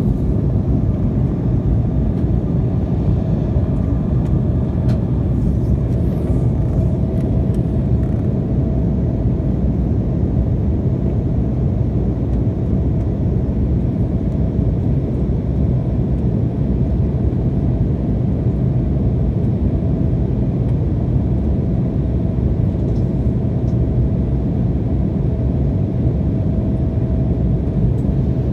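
Steady cabin noise of a jet airliner in flight, heard from inside the cabin: an even low rumble of engines and airflow, with a faint steady hum over it.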